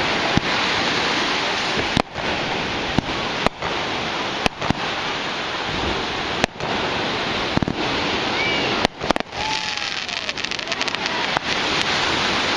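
Dense, continuous crackle of many fireworks going off together, with sharp cracks every second or so and a couple of short whistling glides in the second half.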